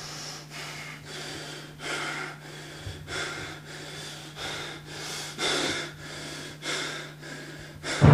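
A man breathing hard, a run of short heavy breaths in and out, about one and a half a second, over a steady low hum.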